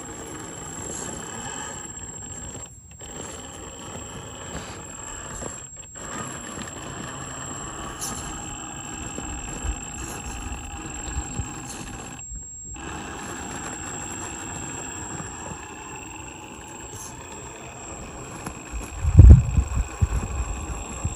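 Radio-controlled rock crawler on portal axles creeping over rock slabs, its electric motor and drivetrain giving a steady high whine that shifts in pitch with the throttle. A loud low thump comes about two seconds before the end.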